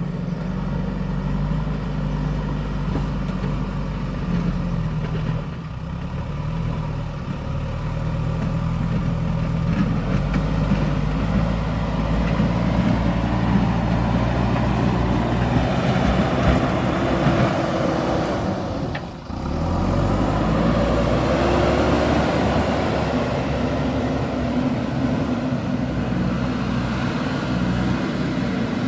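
JCB backhoe loader's diesel engine running under working load, its pitch rising and falling. It breaks off briefly about two-thirds of the way through.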